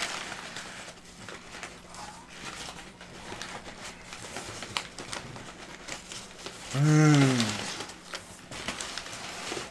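Crumpled brown packing paper rustling and crinkling as it is pulled out of a cardboard box. About seven seconds in, a short hummed voice sound rises and then falls in pitch, and it is the loudest thing heard.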